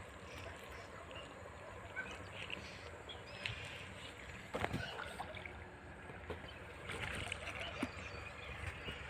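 Feet wading through shallow pond water, with soft sloshing and small splashes at each step, and one sharper knock about halfway through.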